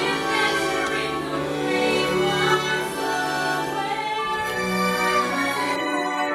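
Orchestral stage-musical accompaniment playing, with held notes. About six seconds in, the deep bass and the highest sounds drop away briefly.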